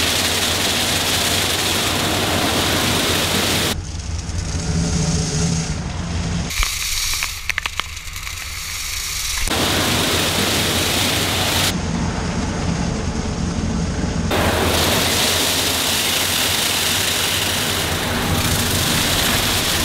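Automatic car wash running on an open-topped Jeep: a steady rushing spray of water and rotating brushes, with a low machine hum underneath. The noise changes abruptly a few times and thins out for a few seconds about a third of the way through.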